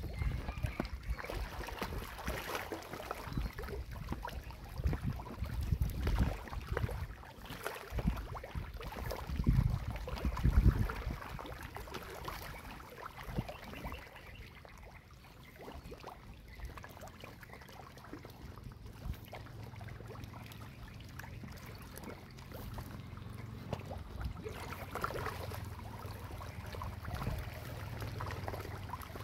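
Pangasius catfish crowding and gulping at the pond surface, with irregular splashing and slapping of water. It is busiest and loudest in the first ten seconds or so, then settles to softer, scattered splashes.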